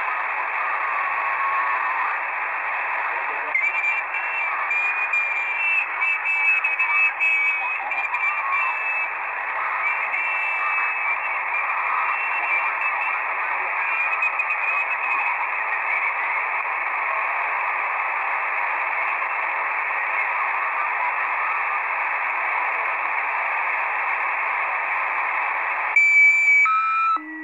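Shortwave receiver audio from a software-defined radio in lower-sideband mode on the 40-metre amateur band: steady band hiss with faint, garbled sideband signals and a few thin whistling tones partway through. Near the end the sound jumps louder and changes abruptly, with several new tones.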